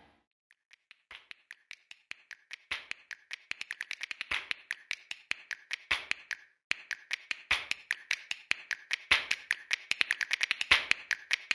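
A rapid run of short, sharp clicks at uneven spacing, several a second, with a brief pause a little past the middle.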